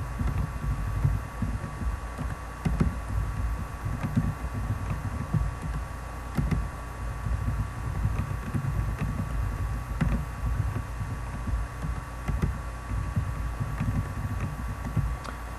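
Typing on a computer keyboard, heard mostly as irregular dull thuds with a few faint clicks, over a steady electrical hum and a thin high whine.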